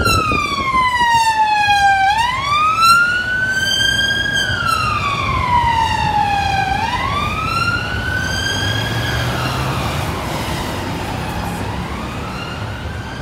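Police siren on a Met Police BMW X5 in wail mode, its pitch sliding slowly down and up with each sweep a little over two seconds long. It grows fainter in the second half as the car drives away, with road traffic underneath.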